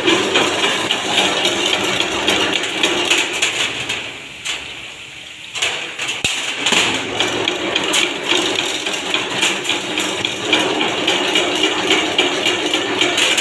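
Chain-link fence machine running, its motor-driven head twisting steel wire into a zigzag spiral with a dense, steady rattling clatter. The clatter drops off about four seconds in and picks up again about a second and a half later.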